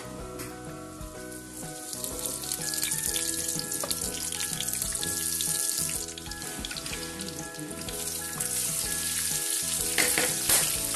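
Whole spice seeds frying in hot oil in a large pot, the sizzle growing louder a couple of seconds in. Near the end a heap of sliced onions is tipped into the oil with a louder burst of sizzling.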